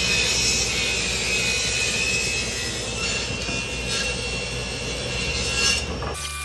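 Woodshop machinery running with a steady whooshing hum. It cuts off abruptly near the end.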